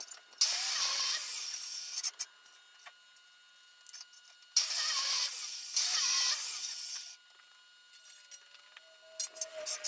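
Two bursts of steady hissing, each about two and a half seconds long, with light clicks and knocks between them.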